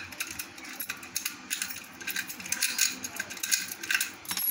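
Round metal padlock being handled and worked in the hands: a quick run of small metallic clicks and rattles.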